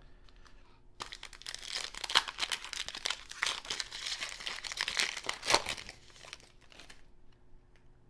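Plastic foil wrapper of a 2020 Panini Prizm Football card pack crinkling as it is torn open and handled, with dense crackling lasting about six seconds.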